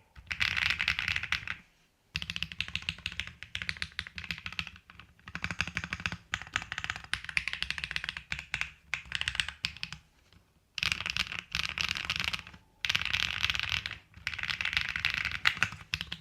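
Epomaker Tide 49 mechanical keyboard with Akko Cilantro tactile switches, an FR4 plate and PBT keycaps, typed on fast: dense runs of clacky keystrokes in bursts, with a few short pauses between runs.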